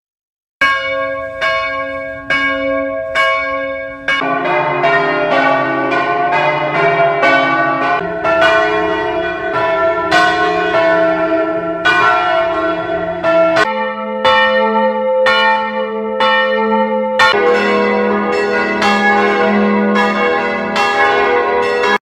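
Church bells ringing in a run of short clips that change abruptly every few seconds: first a single bell struck about once a second, then several bells ringing together in overlapping strokes.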